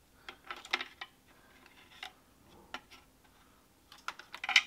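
Scattered light clicks and taps of small parts and packaging being handled on a metal tabletop, a quick cluster of them near the end.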